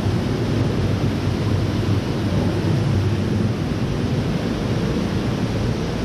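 Steady, even rushing noise with a low rumble underneath and no distinct events.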